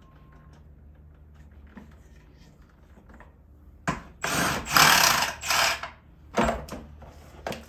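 Cordless power driver on a long extension running in short bursts, backing out the fasteners of a coolant expansion tank: one run of about two seconds starting about four seconds in, then two brief ones near the end.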